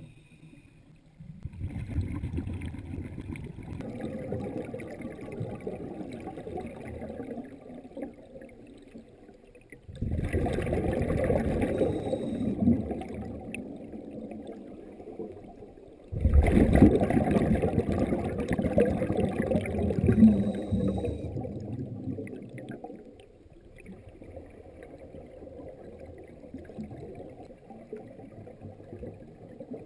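Scuba diver's exhaled bubbles, heard underwater through a camera's dive housing: three long, muffled surges of bubbling, starting about a second in, at about ten seconds and at about sixteen seconds, with a quieter water murmur between them and after the last.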